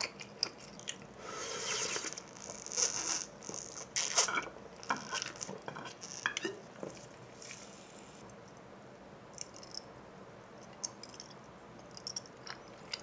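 Plastic screw cap of a Seagram sparkling-water bottle twisted open, with ratcheting clicks and short fizzing hisses of released carbonation in the first few seconds. Then quieter, sparse mouth and drinking sounds follow.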